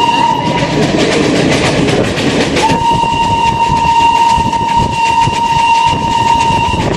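Fairy Queen steam locomotive's whistle blowing a steady high note while the train runs: one blast ends about half a second in, and a second long blast starts a couple of seconds later and holds almost to the end. Under it runs the rattle and clatter of the moving train.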